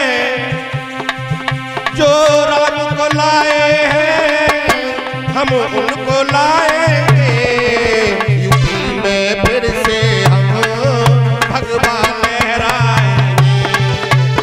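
Live Indian folk music: hand drums keep a steady beat under a wavering melody line.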